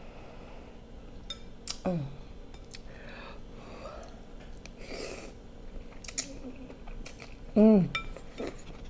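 Close-up eating sounds: chewing with sharp clicks and clinks of utensils against dishes scattered throughout, and two short falling hums of enjoyment, one about two seconds in and a louder one near the end.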